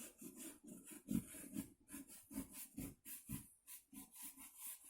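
Drawing on cardboard: short, faint scratching strokes of the drawing tip on the card, several a second, unevenly spaced.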